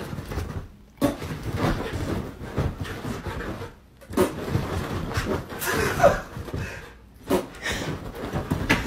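A dog playing rough with a blanket: panting and short mouth noises as it bites and shakes the fabric, with the blanket rustling.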